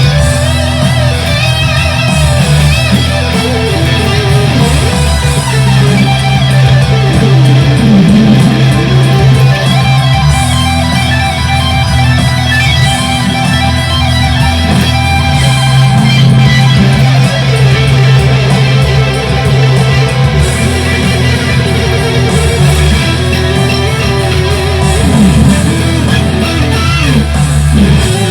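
Fender Stratocaster electric guitar through a Boss Katana 100 amplifier, playing improvised lead lines with string bends and vibrato. Steady low bass notes sound underneath, changing every few seconds.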